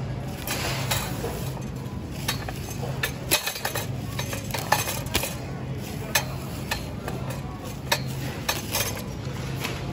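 Supermarket background: a low hum under a steady hiss, with scattered light clinks and clicks throughout.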